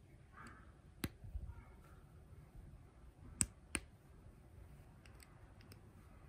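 LEGO plastic pieces clicking into place as a monkey's arm clip-and-bar parts are pressed together: one sharp click about a second in and two more close together a little past three seconds. Soft rustling of the bricks being handled in cotton gloves in between.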